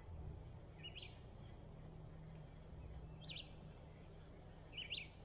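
A small bird gives three short chirps, each a second and a half to two seconds apart, over a low steady background rumble.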